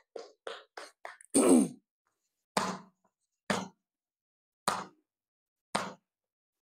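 A series of hand blows on a person's back during percussion (strike) therapy: several quick ones, then single blows about one a second. About one and a half seconds in there is a short voiced grunt with a falling pitch, the loudest sound.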